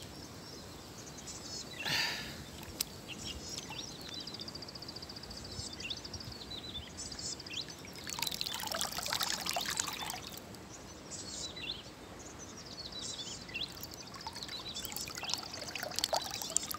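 Water splashing, pouring and trickling off hands and a wet cast net as a fish is worked free of the mesh in river water, louder about two seconds in and again around eight to ten seconds in. Birds chirp and trill in the background.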